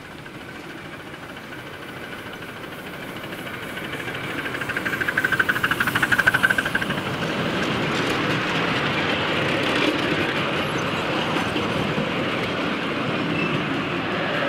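Miniature ride-on railway train approaching and passing close by. The sound grows steadily louder to a peak about halfway through as the locomotive goes past, then stays loud as a long string of goods wagons rolls by, wheels rumbling and clicking on the rails.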